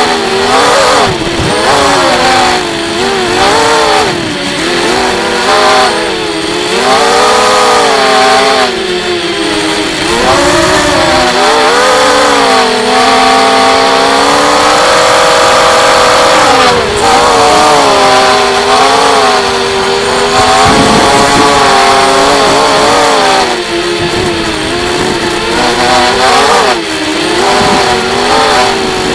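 A 250-size FPV racing quadcopter's Emax 1806 brushless motors spinning 5x3 propellers on a 3S battery, whining in several pitches that rise and fall constantly with the throttle, holding a higher steady pitch for a few seconds around the middle.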